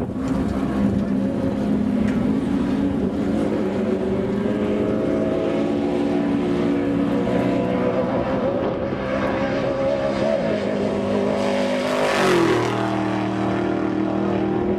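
Off-road race truck engine running steadily at speed. It grows loudest about twelve seconds in, where its pitch drops sharply as it goes by.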